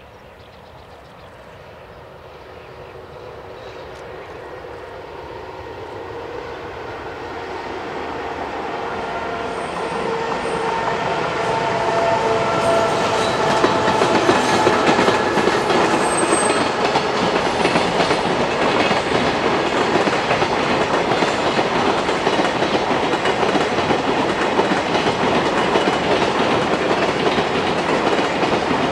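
Freight train approaching and passing, growing steadily louder over the first twelve seconds or so, then a steady clickety-clack of wagon wheels over the rail joints as a long rake of wagons rolls by, with a few faint steady whining tones in the middle.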